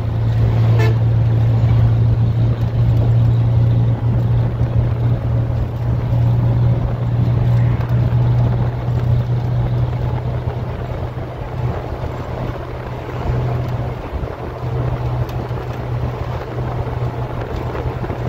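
Steady low drone of a bus's engine and tyre noise, heard from inside the moving bus, easing slightly in the second half.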